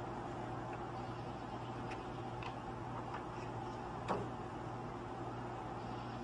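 A cat pawing at water balloons in a bowl: a few faint soft taps over a steady low hum, with the clearest tap about four seconds in.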